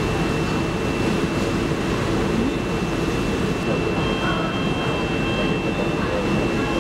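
Steady rumbling machinery noise from the conveyor and kiln that carry racks of fine bone china tumblers. A thin steady whine runs throughout, and a second, slightly higher whine joins about four seconds in.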